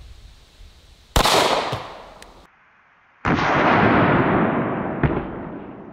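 Ruger 57 pistol firing a single 5.7x28mm round: a sharp report about a second in with a ringing tail. After an abrupt cut a second loud report follows, its long tail fading slowly.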